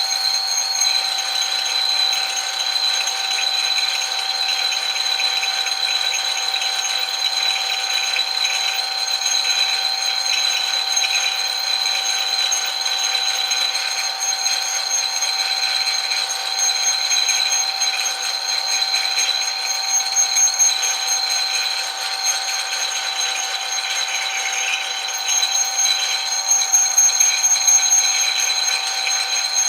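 Metal lathe running steadily with a constant high-pitched whine over a mechanical hiss, swelling slightly a couple of times near the end.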